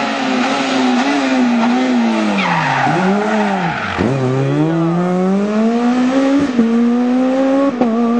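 S1600 rally car, a Renault Clio, with its high-revving engine: the revs fall away in two steep dips as it brakes and turns through a tight corner, with a tyre squeal. It then climbs steadily in pitch as it accelerates away, with short breaks at two upshifts near the end.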